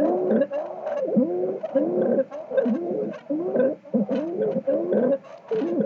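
Stridor from a patient with a severely narrowed trachea: rapid, harsh, pitched breath sounds, about two a second, each with a bending rising-and-falling tone.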